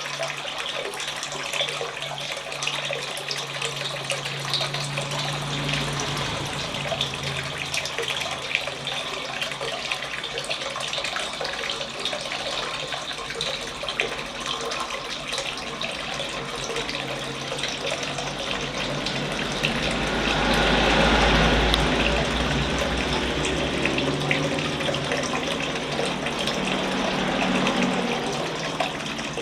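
Water splashing and trickling steadily down a homemade indoor waterfall fountain, the many small splashes merging into a continuous sound that swells louder for a couple of seconds about twenty seconds in.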